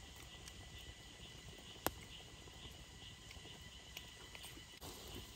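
Insects chirring steadily in a high, pulsing drone, with one sharp click about two seconds in.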